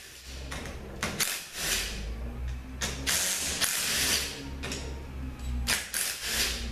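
Cordless impact driver running in several short bursts as it backs out the bolts holding the two halves of a Ford 4R100 transmission front pump together. The longest burst comes about halfway through.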